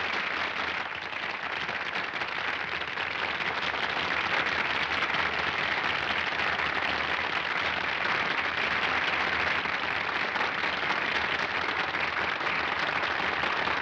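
Audience applauding steadily: a long, dense round of clapping welcoming an announced performer.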